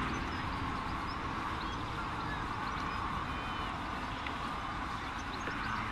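A distant light aerobatic aircraft's engine, a faint steady drone under wind buffeting the microphone, with short high chirps scattered through.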